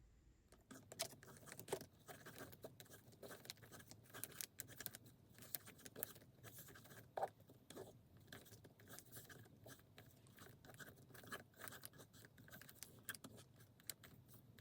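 Faint, irregular scratching and tapping strokes of a painting tool working on a canvas, starting about half a second in.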